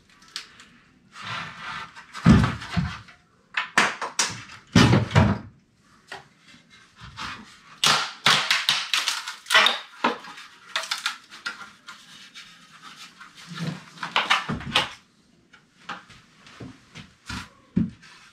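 An old wooden door jamb being pulled and broken apart by hand: irregular wood cracking, creaking and scraping, with heavy thuds about two and five seconds in as the boards are wrenched and knocked apart.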